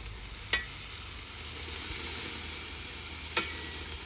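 Hamburgers and steaks sizzling on a charcoal kamado grill: a steady hiss, broken twice by a sharp click with a brief ring.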